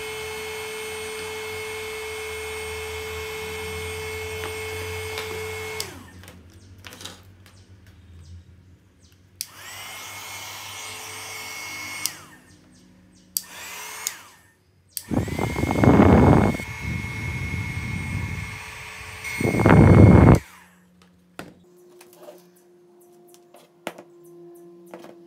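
Small 300 W hot air gun running: its fan motor gives a steady whine over a hum, spins down when switched off about six seconds in, and is switched on again several times. From about fifteen to twenty seconds a much louder rush of air blows at the microphone.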